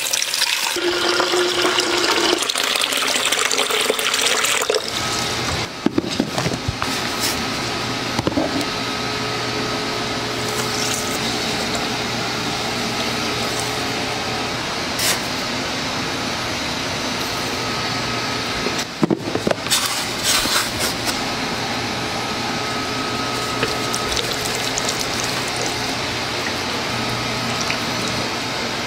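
Water poured from a container into a plastic measuring jug, splashing with a pitch that rises as the jug fills, for the first few seconds. A steady rushing noise with a low hum follows for the rest, with a few short knocks.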